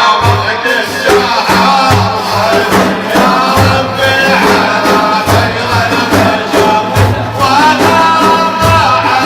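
Devotional Arabic praise music: drums beat a steady rhythm under pitched melodic lines, with voices singing over it near the end.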